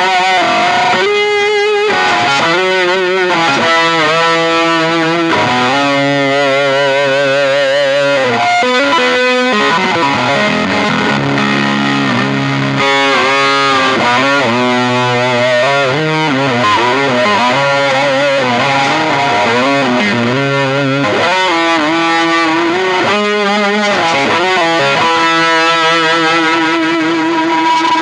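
Electric guitar with humbucking pickups played through a Fat Jimmy Avionic 40-watt tube amp head with two 6L6 power tubes, pushed by a gain pedal with reverb and delay on. It plays a distorted lead line of sustained notes with wide vibrato and string bends.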